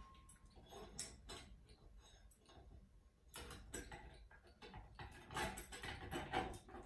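Faint, irregular metallic clicks and ticks of a hand screwdriver working tiny screws into a ceiling fan's metal light-kit housing. The clicks come in clusters and are busiest in the second half.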